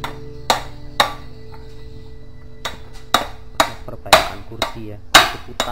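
Hammer striking the metal seat-mechanism plate of a swivel office chair's base: two sharp metallic blows, a pause of over a second, then a run of about seven blows roughly half a second apart.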